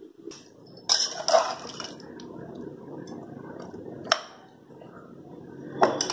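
A metal spoon stirs thick, wet mutton masala in an open aluminium pressure cooker, making a wet squelching sound. There is a short clatter about a second in, and sharp clinks of the spoon on the pot about four seconds in and again near the end.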